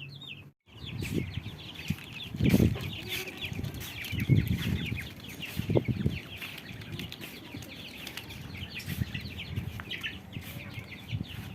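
A crowd of young poultry chicks peeping continuously in many short, high, falling chirps, with a few dull thumps and rustles as they are handled and let out.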